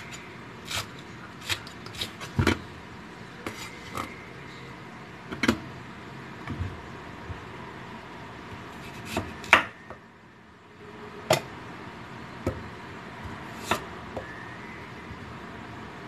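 Kitchen clatter: dishes, utensils and containers being handled, giving irregular clinks and knocks over a steady background hum.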